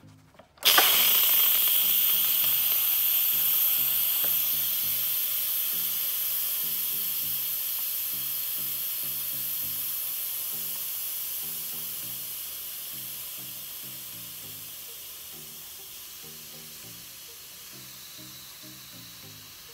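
Instant Pot electric pressure cooker venting steam through its release valve after its vent button is pressed: a sudden loud hiss starts about a second in, then slowly fades as the remaining pressure drops after a 10-minute natural release.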